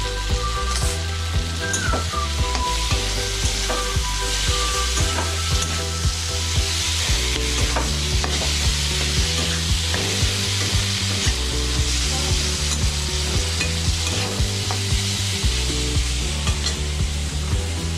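Vegetables sizzling as they are stir-fried in a metal kadai, with the spatula scraping and knocking against the pan about twice a second.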